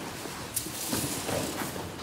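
A broom sweeping across a dirt floor, several short swishing strokes with a few sharp scrapes.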